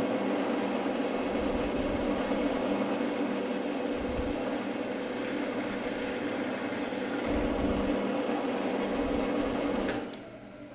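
Bench drill press running with a twist drill bit: a steady motor and belt whine over a rougher noise. It stops about ten seconds in and winds down over the next second or two.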